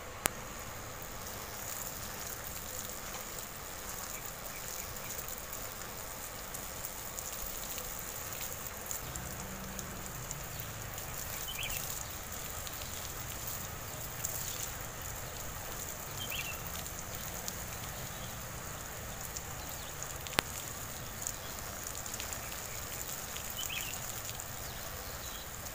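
A homemade mini water pump, a small toy DC motor driving a syringe-barrel pump, running steadily while its thin jet of water sprays out of the hose with a steady hiss. A switch clicks once just after the start as it is powered on.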